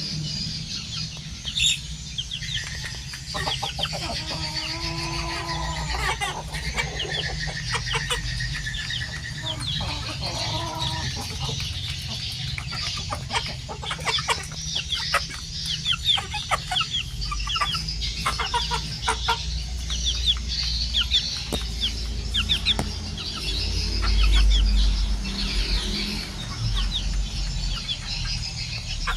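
A flock of farmed chickens calling continuously, with many short high calls and some lower clucking. A low rumble swells briefly about three-quarters of the way through.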